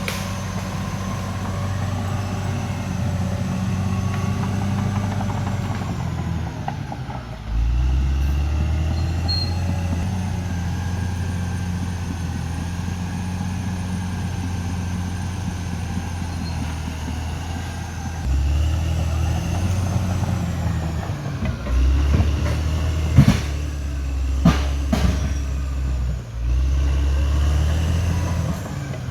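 Caterpillar D6R XL bulldozer's diesel engine running, its note rising under load several times. Several sharp metallic knocks come about three quarters of the way through.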